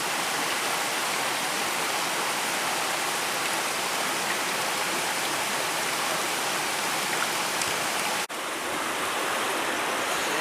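Mountain stream water rushing steadily over rocks, with a momentary break about eight seconds in.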